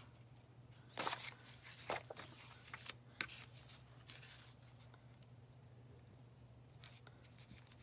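Faint, scattered rustles and light taps of a flexible Chalk Couture adhesive mesh transfer being handled and pressed flat onto its paper backing, the clearest about a second and two seconds in, over a steady low hum.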